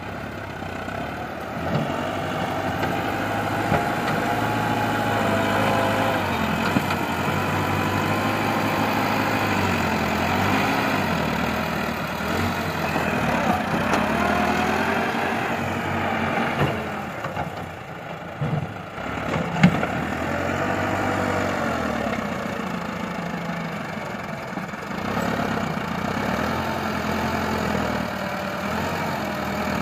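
Massey Ferguson 385 tractor's diesel engine running under load, its pitch rising and falling as the front loader scoops and lifts soil. A few sharp knocks come around the middle.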